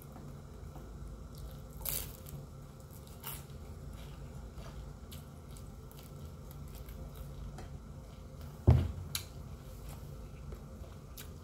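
Close-up eating sounds: biting and chewing fried lumpia and fried chicken, with small crunches, wet squishes and scattered clicks over a steady low hum. One sharp, low thump about three-quarters of the way through is the loudest sound.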